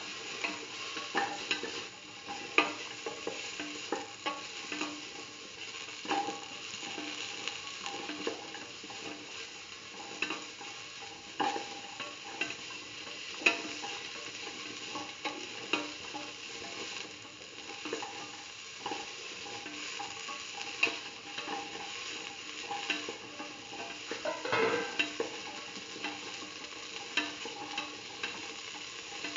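Beetroot cubes, shallots and red chillies being stirred and sautéed in oil in a stainless steel pan: a steady sizzle with frequent sharp scrapes and clicks of the utensil against the metal.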